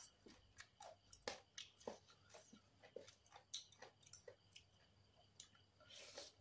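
Faint, scattered clicks and scrapes of a metal spoon and fork tossing papaya salad on a plastic tray, with quiet chewing. There is a slightly louder mouthful near the end.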